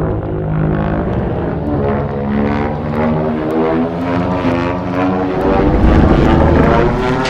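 Godzilla 2014 roar sound effect: a long, raspy, pitched roar lasting about five seconds, giving way near the end to a louder, deep, noisy rumble.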